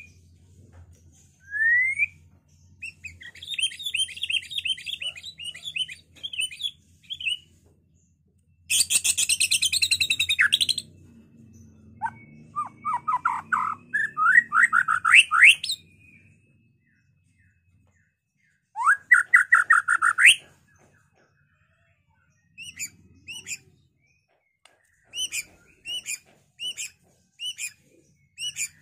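White-rumped shama singing in separate phrases with pauses: rising whistles and fast trills, a loud harsh rattle about nine seconds in, and short sharp repeated notes near the end.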